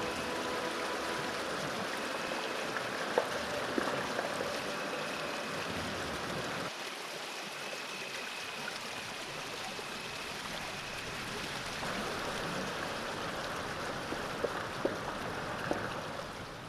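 Steady rush of waterfall and stream water, heard through a smartphone microphone, with a few faint knocks. The low rumble drops away about seven seconds in, and the sound fades out at the end.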